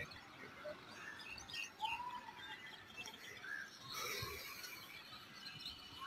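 Faint bird chirps and short calls scattered over quiet outdoor background, with a soft hiss for about a second past the middle.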